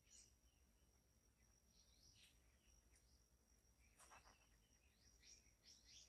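Faint forest ambience: short, high bird chirps every second or two over a thin, steady high insect tone.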